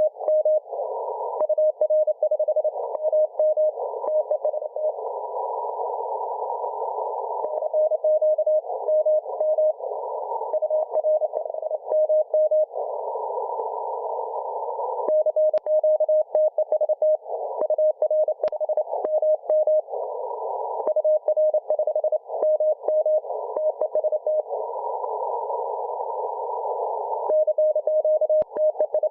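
Morse code (CW) signal received on a shortwave radio: one steady tone keyed on and off in dots and dashes. Between the marks is a band of hiss narrowed by the receiver's CW filter, with a few crackles of static.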